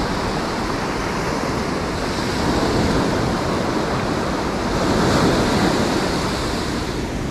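Ocean surf washing onto the shore, swelling louder as waves break about two and a half and five seconds in, with wind rumbling on the microphone.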